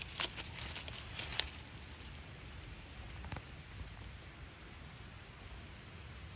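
Dry leaves and grass crackling and rustling in the first second or so as young macaques move on the leaf-strewn ground, then a faint steady outdoor background with a thin, high insect whine that comes and goes.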